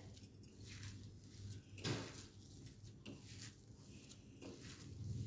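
Faint, irregular squishing and patting of bare hands kneading a ground-chicken kabab mixture with cornflour and oil in a bowl, with a slightly louder soft knock about two seconds in.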